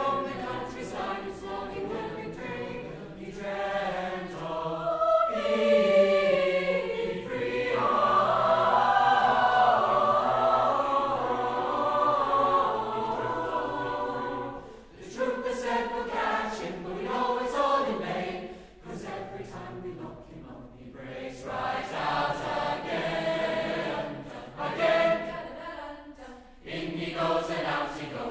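Large mixed choir of teenage voices singing in parts. It builds to a loud, sustained chord about eight seconds in, then breaks into shorter, clipped phrases with crisp 's' consonants.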